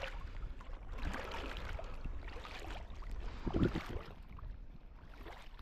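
Water sloshing and rustling movement around a kayak, with a short, stronger low sound about three and a half seconds in.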